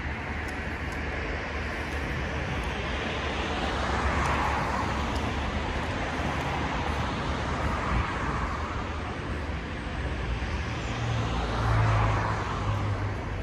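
Street traffic: cars passing on the road, swelling about four seconds in and again near the end, the second with a low engine hum.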